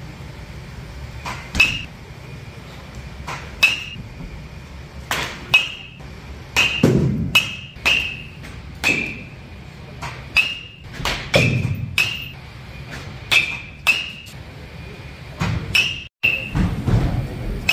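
Baseball bats hitting pitched balls: repeated sharp cracks, each with a brief metallic ring, coming at irregular intervals from several batting cages at once, with a few duller thuds among them.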